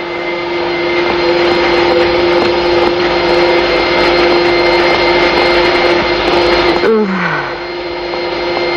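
Upright vacuum cleaner motor running steadily with a whining hum. About seven seconds in, the sound dips briefly with a short falling tone, then runs on.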